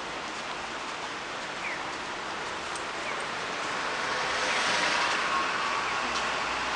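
Steady hiss of road traffic, swelling as a vehicle passes about four to five seconds in.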